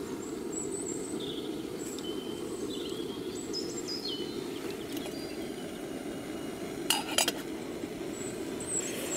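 Steady low rush of a gas canister camping stove burning under a pot of water. Birds chirp in the first half, and a few sharp metal clinks come about seven seconds in.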